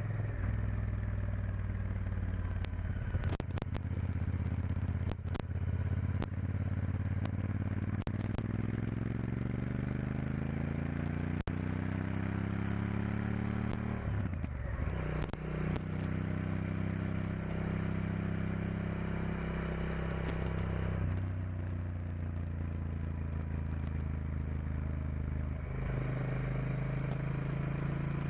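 Honda Varadero XL1000's V-twin engine running under way, its pitch climbing steadily for several seconds and then dropping sharply about halfway through, with further changes in engine note later; wind noise on the microphone and a few sharp clicks in the first few seconds.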